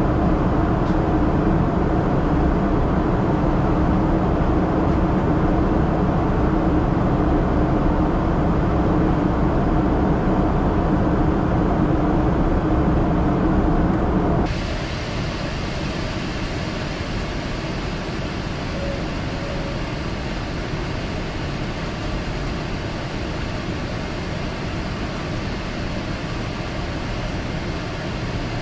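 Cabin noise inside a Boeing 777-300ER after takeoff: the steady drone of its GE90 engines and rushing air, with a low hum running through it. About halfway it cuts abruptly to a quieter, even cabin hiss.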